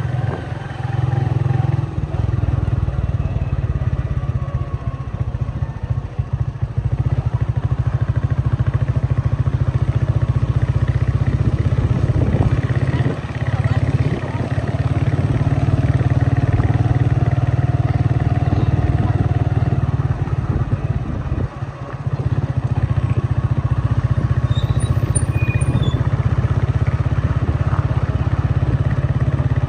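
Steady, loud rumble of a vehicle or motorcycle engine on the move, continuous apart from two brief dips.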